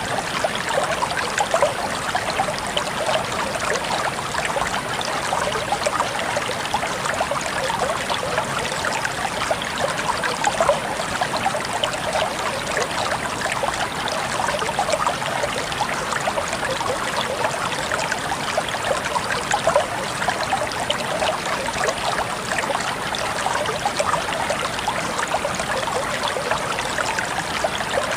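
River water running steadily: a continuous babble of flowing water, dense with tiny splashes and trickles.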